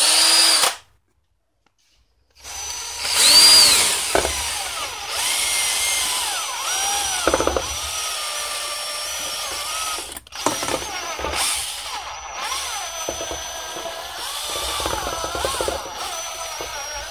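Power drill spinning a paint-mixer paddle through boiled potatoes in a metal pot, mashing them. A brief spin of under a second, a pause, then the drill runs on with its motor whine rising and falling as the speed changes, stopping for a moment about ten seconds in.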